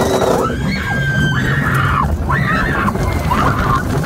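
Blue Hawk roller coaster train in motion: a steady low rumble of wheels on steel track and wind, with drawn-out voices rising and falling over it.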